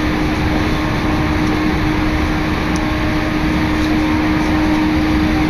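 Commuter train running, heard from inside the passenger car: a steady rumble of wheels and running gear with a constant low hum.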